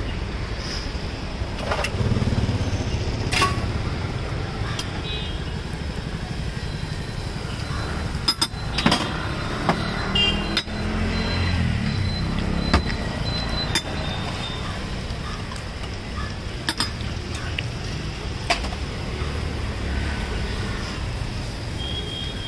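Roadside street ambience: a steady rumble of passing traffic, broken by scattered sharp clinks of metal utensils, with voices in the background.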